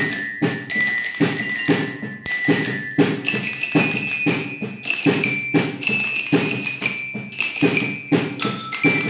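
Marching-band bell lyre, a glockenspiel of metal bars, struck with a mallet to play a reggaeton melody of ringing notes. Underneath runs a steady reggaeton backing beat.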